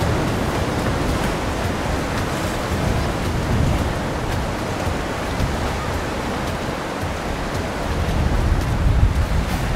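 Wind buffeting the microphone on a moving boat, with water rushing past: a steady rushing noise, heaviest in the low end, swelling in a gust near the end.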